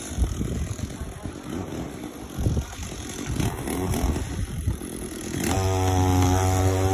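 Gas chainsaw running with a rough, uneven low rumble, then revved up and held at a steady pitch for about a second and a half near the end.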